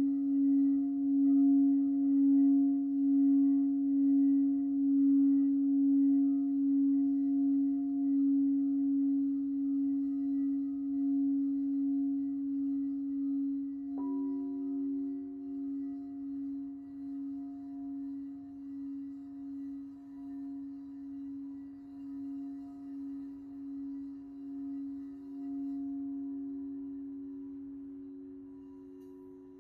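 Frosted quartz crystal singing bowls ringing: one low bowl holds a steady tone that pulses and slowly fades. About halfway through a second, higher bowl is struck and rings along with it, and the sound fades out near the end.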